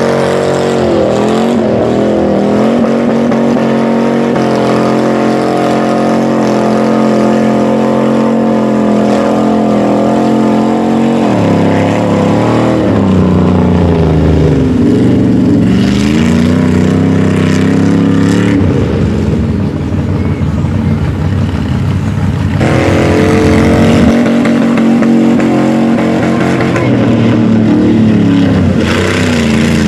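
Chevy Blazer mega truck's engine revving hard as the truck churns through deep mud and water: held at high revs for several seconds, then revs swooping up and down as the tyres spin and grip.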